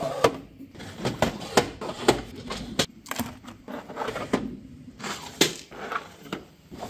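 3D-printed plastic drawers sliding into and out of their plastic drawer cases, with a string of irregular clicks and knocks as they slide and seat.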